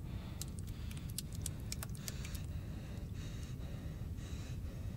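Broken glass clinking and crunching on a floor: a quick run of sharp little clicks in the first two seconds or so, then a few fainter ones, over a low steady hum.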